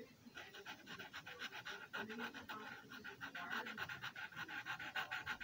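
Felt tip of a Sharpie permanent marker scratching across paper as it colours in, in quick short strokes several times a second.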